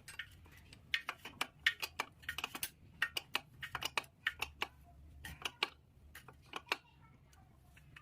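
Light metallic clicking and clinking in quick, irregular clusters, from metal parts being handled, thinning out after about six seconds.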